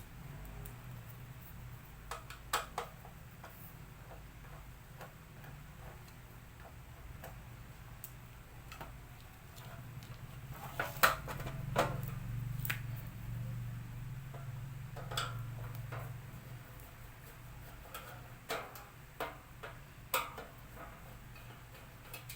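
Scattered light clicks and taps from a laminator's plastic casing and parts being handled, over a steady low hum.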